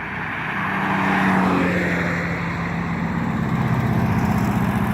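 A motor vehicle drives past on the highway: road and engine noise swells to its loudest about a second in, and a steady low engine drone carries on afterwards.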